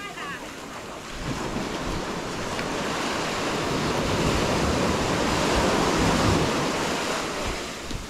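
Sea waves washing up on a sandy beach, the surf swelling from about a second in and easing off near the end.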